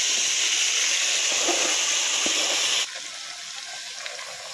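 Masala-stuffed brinjals sizzling in hot oil as they go into the pot, with a few faint spatula scrapes. The loud sizzle drops suddenly about three seconds in and settles to a quieter steady sizzle.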